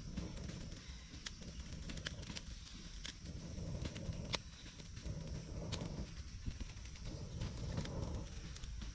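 Small stick campfire crackling, with scattered sharp pops and snaps, as a whole feathered chicken is held in the flames to singe it.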